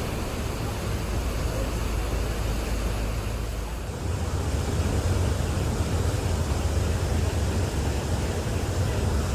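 Steady low rumble under an even rushing noise, the kind heard aboard a ferry under way. The low hum shifts in pitch about four seconds in.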